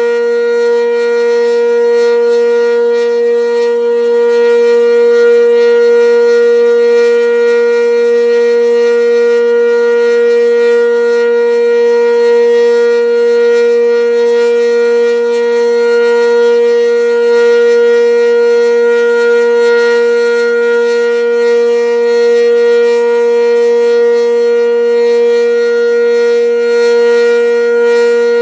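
Sentry 10V outdoor warning siren sounding a loud, steady tone at one constant pitch for a tornado drill test.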